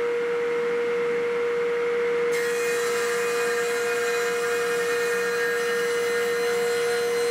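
Table saw fitted with a 10-inch, 40-tooth carbide-tipped Amana Prestige blade, running with one steady tone while ripping a sapele board. A brighter hiss joins about two seconds in.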